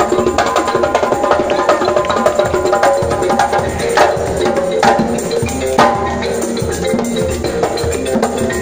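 Live djembe hand drumming with an acoustic guitar, playing a fast, busy dance rhythm. Three louder, sharper drum slaps come about a second apart near the middle.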